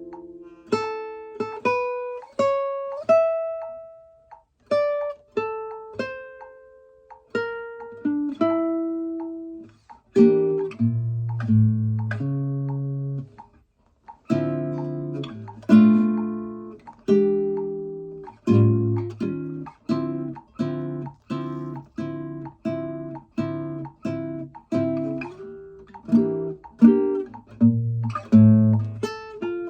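Kazuo Yairi CY 130 nylon-string classical guitar played solo, plucked by hand. About the first ten seconds are a slow melody of single notes, each ringing and dying away. After that come fuller chords and arpeggios over deep bass notes.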